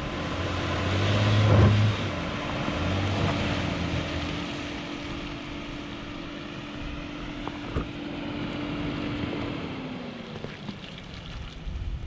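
Ram ProMaster van's engine revs as the van pulls through slushy mud and snow, loudest about a second and a half in. It then runs at a steady hum that fades as the van drives away, the note dropping near the end.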